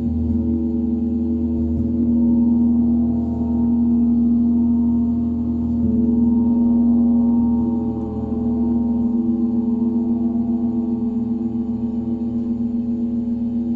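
Meditation gong ringing on with a deep drone and many held overtones, its loudness swelling and easing in slow waves every couple of seconds.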